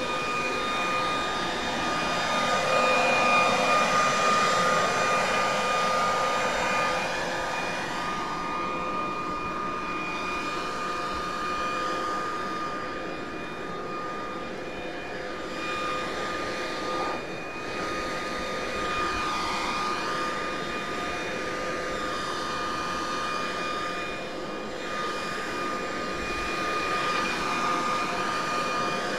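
Handheld corded electric leaf blower running steadily, with a high motor whine over the rush of air. The rush swells and shifts as the nozzle is swept across the roof shingles, blowing off fallen maple seeds.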